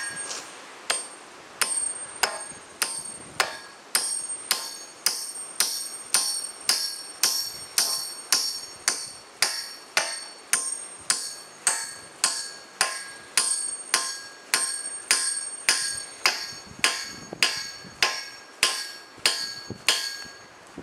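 Spike maul driving a railway spike through a steel tie plate into a wooden tie. A steady run of sharp metal-on-metal blows, about two a second, each ringing briefly.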